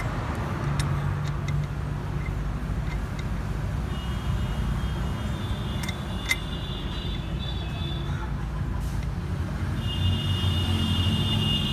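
Steady low rumble of motor vehicles, with a few light metallic clicks as the sensor is handled and fitted. A high-pitched multi-tone squeal comes twice, about four seconds in and again near the end.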